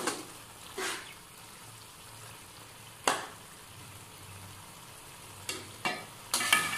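A spatula scrapes and knocks against a wok while stirring and scooping cooked okra (bhindi) masala, in several short strokes at uneven gaps, with a cluster near the end. Under it runs the faint, steady sizzle of the masala still cooking in oil.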